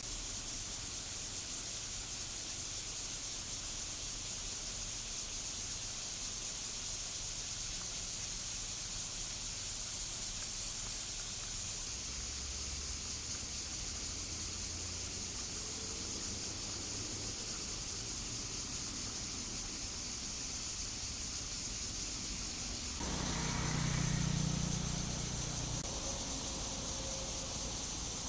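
Cicadas singing in a dense, steady high-pitched chorus. A low rumble swells near the end and is the loudest moment.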